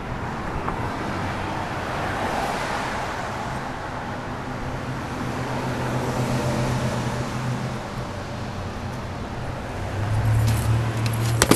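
Steady city street traffic going by, a rushing noise with a low hum that swells near the end. Near the end come a few sharp knocks.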